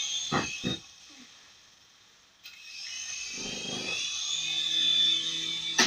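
Toy remote-control helicopter's small electric motor and rotor whining. It cuts out after two knocks near the start, then spins up again suddenly about two and a half seconds in and keeps running with a steady high whine.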